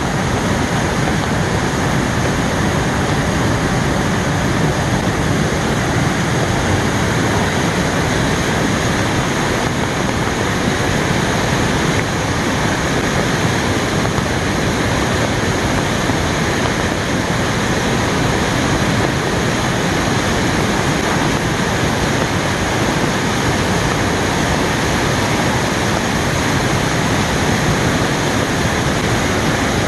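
Waterfall in heavy spate after heavy rain, a loud, steady rush of falling water.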